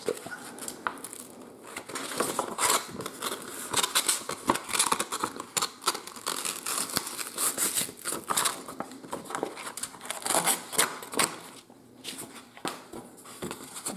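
A sheet of 150-grit sandpaper being creased, folded and torn in half by hand: a run of irregular dry crackles and rasps, with a short lull near the end.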